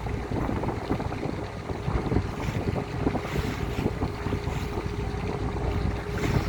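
Wind buffeting the microphone over the steady low rumble of a ferry under way, with a thin steady hum coming in about halfway through.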